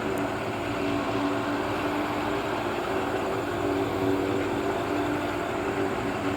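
Corn-harvesting farm machinery running steadily: a continuous mechanical drone with a steady hum.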